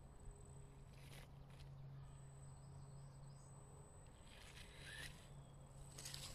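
Faint, near-silent sound of a small 1/18-scale RC crawler creeping over mossy ground: a steady low motor hum with a few soft rustles from the tyres.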